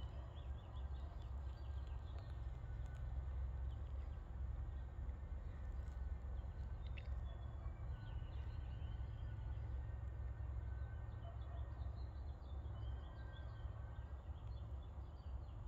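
Birds chirping and calling in the background over a steady low rumble of outdoor ambience.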